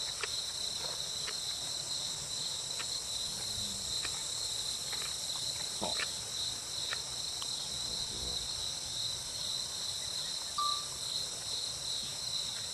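Steady chorus of insects, a continuous high-pitched trill, with a few faint scattered clicks.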